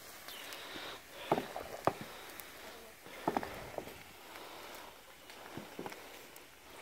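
Pork cracklings rendering in a cauldron of hot lard, stirred with a long wooden paddle: a steady bubbling sizzle with irregular knocks and splashy strokes of the paddle through the pot.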